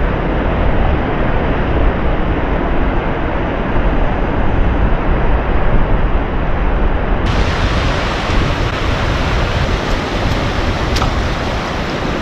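Ocean surf washing over shallow rocks and waves breaking, a loud, steady rush, with wind buffeting the microphone.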